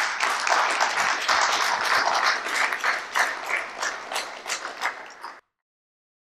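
Audience applauding, the clapping thinning out and growing quieter before it is cut off abruptly about five seconds in.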